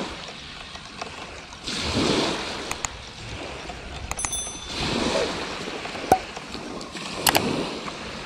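Small waves breaking on the beach, swelling and fading about every two to three seconds. A few light clicks and handling sounds come from a fixed-spool spinning reel being wound in.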